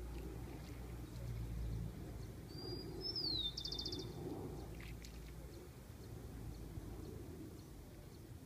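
A bird's single whistled call about three seconds in: a note that glides downward, then a quick trill, over a low steady outdoor rumble.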